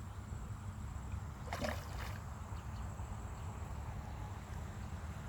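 Steady low rumble with faint water sounds, and a brief splash about a second and a half in.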